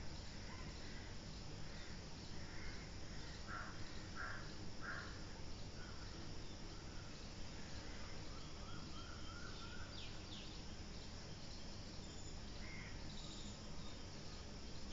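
Outdoor garden ambience: insects chirping steadily in an even, repeating rhythm, with three bird calls about four seconds in and a short run of bird chirps near the middle, over a faint low background hum.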